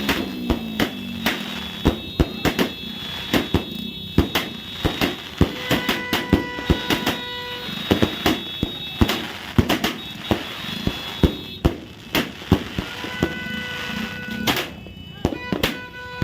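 Consumer fireworks and firecrackers going off in a rapid, irregular string of sharp bangs and cracks, with music playing along. A steady high tone sounds twice among the bangs.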